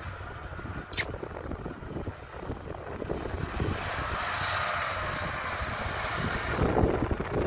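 Engine of a small tracked rice-field carrier running as it crawls through the stubble, with wind rushing on the microphone. A single sharp click about a second in.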